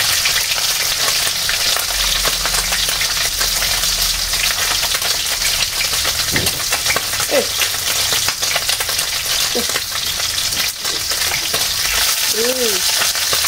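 Pieces of pindang tongkol (boiled salted tuna) frying in hot oil in a non-stick frying pan: a steady sizzle with fine crackling spatter as the pieces are turned with a spatula.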